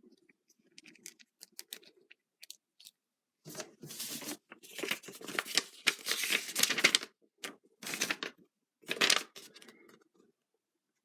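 Plastic packaging crinkling and rustling in several bursts as figure parts are handled and unwrapped, the longest lasting about two seconds in the middle, with small plastic ticks and clicks before and between them.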